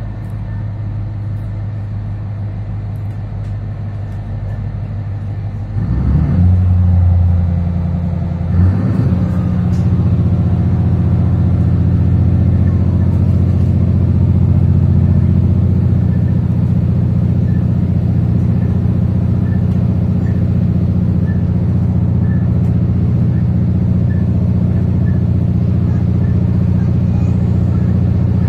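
Diesel engine of a 3000 class diesel-electric railcar, heard from inside the car. It idles at first, then comes up to power in two steps about six and nine seconds in as the railcar pulls away from a station, and runs steadily under load as it gathers speed.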